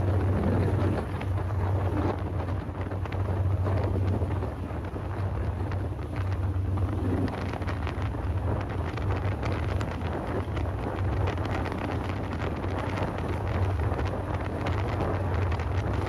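A boat's engine running steadily with a low drone, under wind buffeting the microphone, with scattered clicks in the second half.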